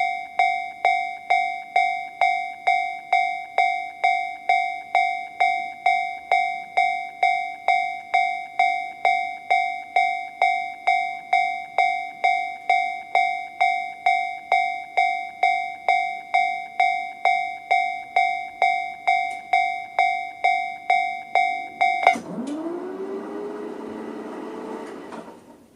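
Japanese railway level-crossing alarm from a Toho Denki TA3-VR electronic alarm sound generator, playing the Tobu Railway 'sound C' bell: a steady ding-ding of electronic bell strokes, about two a second, each ringing and decaying. It cuts off suddenly near the end, followed by a whirring sound that rises in pitch for a few seconds and then dies away.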